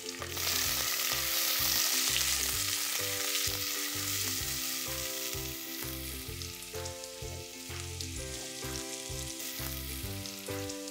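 Sliced red onions sizzling as they deep-fry in hot oil in a pressure cooker, being browned for birista. The sizzle is loudest just after the onions go in and slowly dies down.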